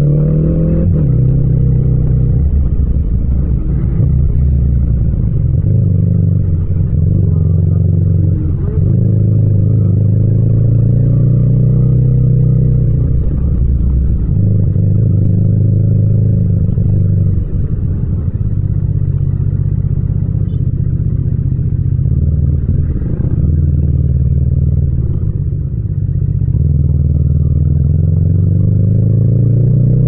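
Yamaha MT-07's 689 cc parallel-twin engine running at low revs in slow traffic, its pitch rising and falling as the throttle is rolled on and off, with a couple of brief dips.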